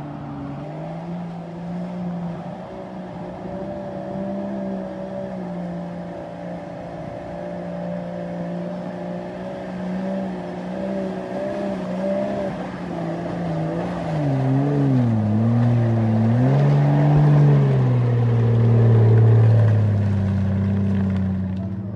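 Off-road 4x4's engine held at high revs under load. About two-thirds of the way through, the revs dip and rise several times as the throttle is worked, and it is loudest there; then the revs settle lower near the end.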